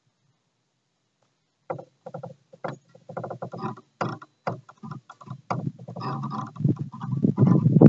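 Drag of an Abu Garcia 6500 baitcasting reel, set nearly as tight as it will go on 40-pound line, giving line as the line is pulled. It starts about two seconds in as short stuttering bursts that come faster until it runs almost continuously near the end.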